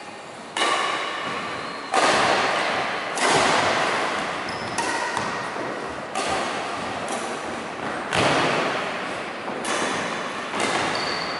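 Badminton racket strings striking a shuttlecock back and forth in a rally: sharp hits every one to two seconds, about nine in all, each echoing on in a large hall.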